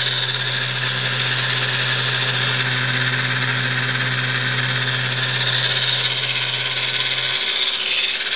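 Small battery-powered electric motor and gearbox of a wooden toy submarine, turning its twin propellers with a steady whir and hum. The low hum drops out briefly near the end.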